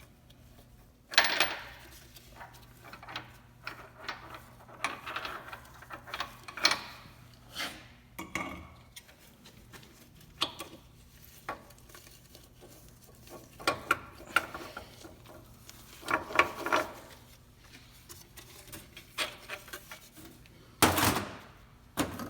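Intermittent metallic clinks and clanks of hand tools and steel parts being handled during rear differential work. Louder knocks come about a second in and near the end.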